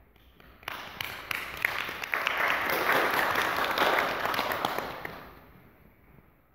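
Audience applauding. The clapping starts suddenly under a second in, swells, then dies away about two-thirds of the way through.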